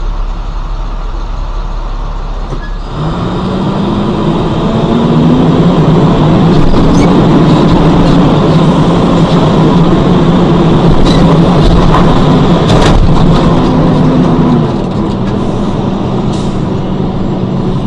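Engine of a vehicle, heard from inside its cab, pulling away from a stop. Its steady hum rises about three seconds in, runs loud and even, and eases off near the end, with a few sharp knocks about two-thirds of the way through.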